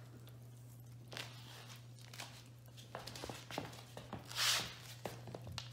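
Puppy feet pattering on a wooden floor, scattered light claw clicks and ticks, with a brief rustle about four and a half seconds in, over a low steady hum.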